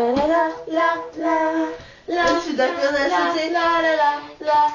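A young woman's voice singing a melody, with long held notes and a short pause about two seconds in.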